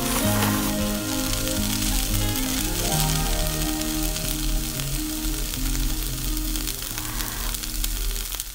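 Stir-fried ramen noodles sizzling steadily in a hot frying pan, under background music with a simple stepping melody. Both fade out near the end.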